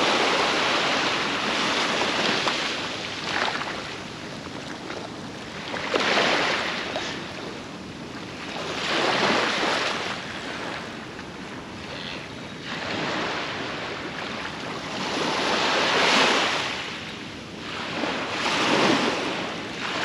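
Sea waves breaking on a beach, one surge after another every three or four seconds, the loudest about six and sixteen seconds in, with some wind on the microphone.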